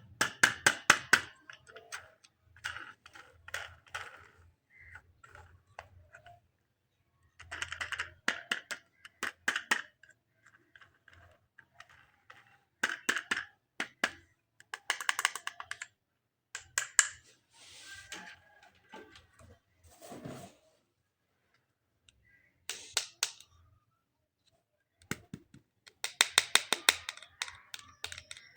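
Plastic toy pieces and packaging being handled: bursts of rapid clicking and crackling, a few seconds at a time, with short pauses between.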